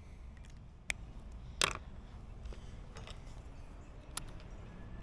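A few short, sharp clicks and taps from small hard objects being handled, the loudest a little under two seconds in, over a low steady rumble.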